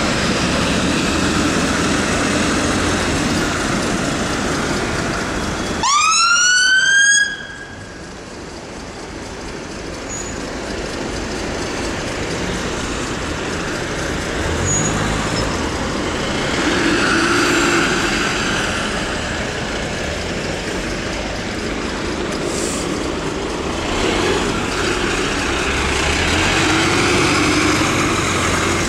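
Fire engine siren giving one short rising wail about six seconds in, lasting just over a second before it cuts off. Around it is steady traffic noise and diesel engines of slow-moving vehicles.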